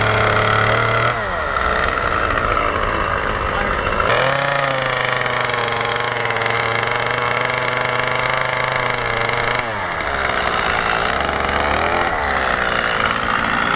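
Chainsaw carving into wood, its engine held at a steady high speed, dropping back about a second in, picking up again around four seconds in and easing off again near ten seconds.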